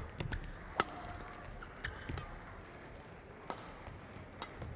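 Badminton rally: sharp clicks of rackets striking the shuttlecock and players' shoes squeaking and tapping on the court floor, several hits in quick succession, the loudest about a second in.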